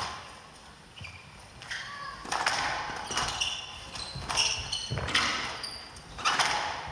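Squash ball being struck by rackets and hitting the court walls during a rally, a sharp knock roughly every second, mixed with the squeak of players' shoes on the court floor.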